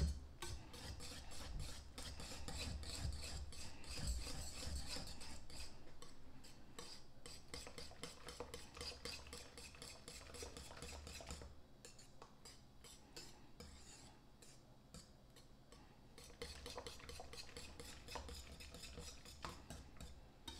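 Wire whisk stirring barbecue sauce and grape jelly in a glass mixing bowl: a quick, steady run of scraping strokes as the wires rub against the bowl, fainter for a few seconds past the middle.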